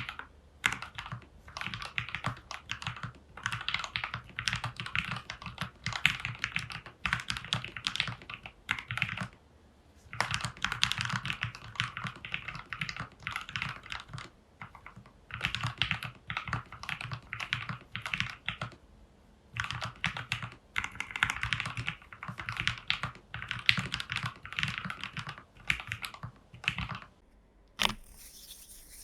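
Typing on a plateless, foam-dampened plastic mechanical keyboard with lubed Gateron Pro Milky Yellow linear switches: fast runs of key clicks in bursts with short pauses, then a brief scratchy noise near the end.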